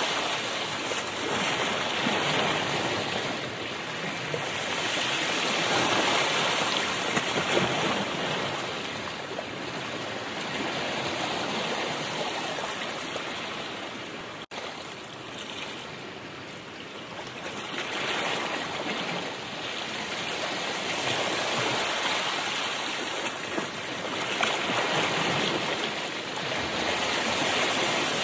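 Road and wind noise inside a moving car's cabin, a steady rushing that swells and eases over several seconds as the car speeds up and slows, with a brief cut-out about halfway.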